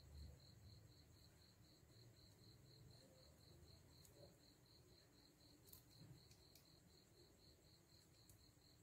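Near silence: faint room tone with an insect chirping in even high pulses about four times a second, and a few faint ticks.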